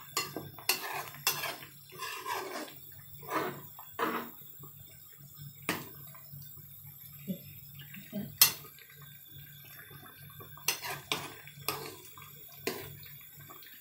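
Metal spoon stirring thick curry in a stainless steel pot: irregular clinks and scrapes against the pot's sides, with the sauce sloshing. The sharpest knock comes about eight seconds in.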